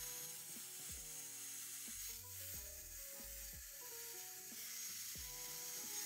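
MOOSOO MH10 high-speed hair dryer blowing at its highest speed on warm: a steady rushing hiss of air with a faint high whine. Background music with low bass notes and soft beats plays underneath.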